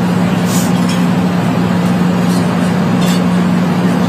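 Airplane cabin noise on an audio recording played back in court: a steady, unbroken rush of engine and air noise with a constant low hum.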